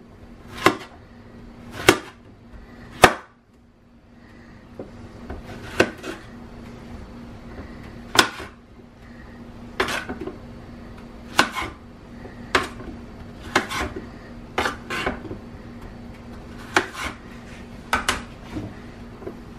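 A chef's knife chopping a green squash into chunks on a cutting board: sharp knocks of the blade hitting the board, one cut at a time at irregular intervals of about a second.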